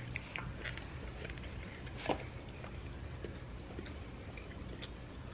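People chewing food with small wet mouth clicks, with one sharper click about two seconds in, over a faint low hum.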